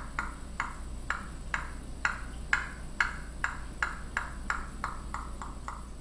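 Male Solomon Island Eclectus parrot making a run of hollow, popping clicks, about two a second, coming faster near the end.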